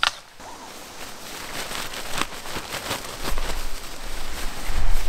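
Rustling and scraping of nylon tent fabric and gear being handled, growing louder, with a low rumble of wind on the microphone in the second half.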